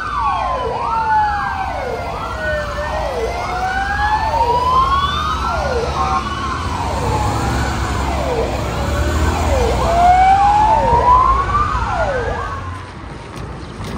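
Police sirens of historic Czechoslovak VB patrol vehicles: a fast rising-and-falling yelp repeating a little more than once a second, with a second, slower tone gliding up and down over it and engine rumble beneath. The sirens fade away near the end.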